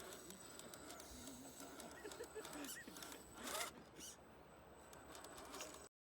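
Faint background ambience with a few small chirps and a short rustle about three and a half seconds in, then an abrupt cut to total silence near the end.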